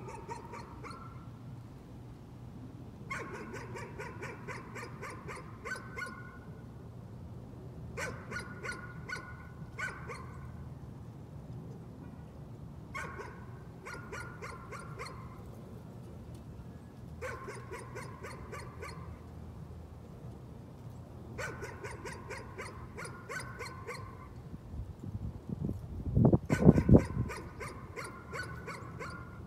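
A dog barking over and over in bouts of rapid barks, each bout lasting a couple of seconds with short pauses between: persistent nuisance barking. Near the end there is a brief, loud low rumble.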